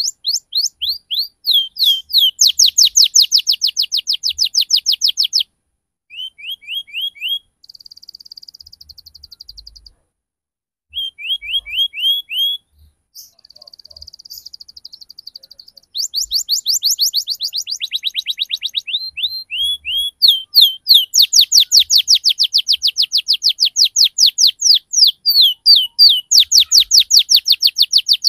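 Domestic canary singing in fast rolling trills of rapidly repeated, downward-sweeping chirps, about ten a second. It breaks off briefly twice in the first half into softer buzzing trills, then trills loud and unbroken through the second half.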